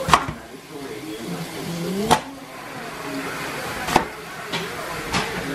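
Chef's knife cutting through a raw turnip and knocking down onto the cutting board, four sharp chops spaced one to two seconds apart.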